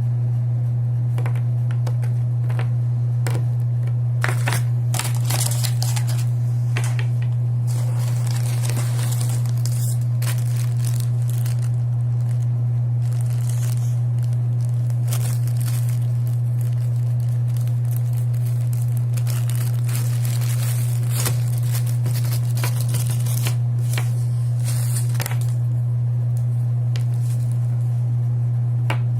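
Plastic packaging being crinkled, torn and handled in bursts, with small clicks, over a loud steady low hum.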